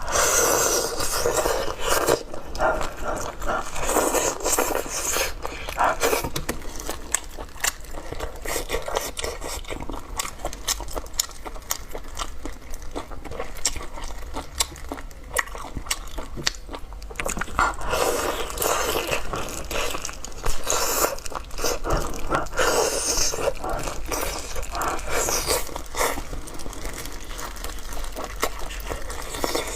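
Close-miked eating: a person biting and chewing food, heard as a dense run of sharp clicks and crackles, louder in some stretches than others.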